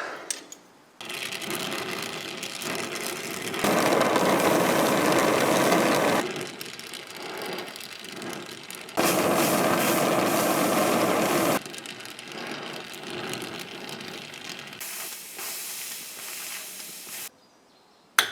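Gas torch burning with a steady hiss, heating a seized brake caliper bleed screw to free it. It gets louder twice for a few seconds, stepping up and down sharply, then cuts off near the end.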